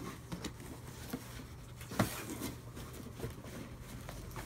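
Cardboard shoebox being worked out of a tight-fitting cardboard outer box: cardboard scraping and rustling with small handling clicks, and one sharp knock about two seconds in.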